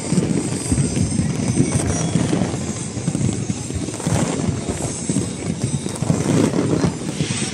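Fireworks going off in a dense, continuous barrage of rapid, irregular pops and bangs, with no break.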